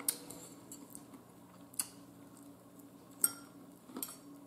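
A metal fork clinking against a bowl of salad: four short, sharp clicks spaced about a second or more apart, over a faint steady hum.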